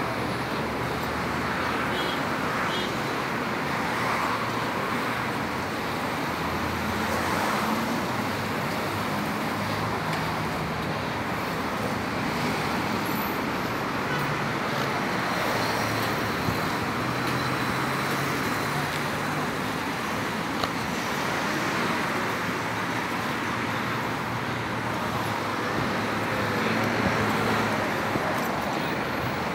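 Steady road traffic noise from cars driving along a city street.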